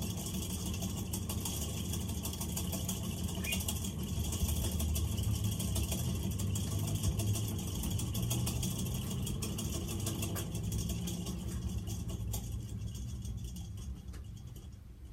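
Antique Tuerk Hunter four-blade friction-drive ceiling fan running with a steady low hum, a rattle and a high hiss, dying away near the end.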